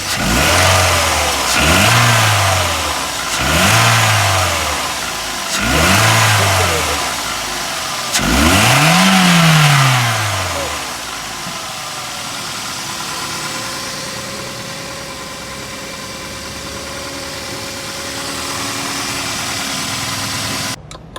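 Toyota XLi car engine being revved five times in quick blips, the last one longer and higher, then settling to a steady idle. It stops abruptly near the end. The engine is being run up to check a sound problem.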